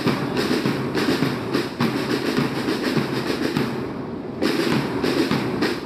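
Marching band drum line playing snare drums and bass drums in a fast, continuous cadence, briefly quieter about four seconds in.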